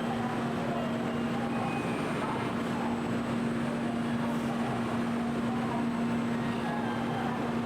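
Shinkansen station platform ambience: a steady, even hum with one held low tone, and faint scattered voices in the background.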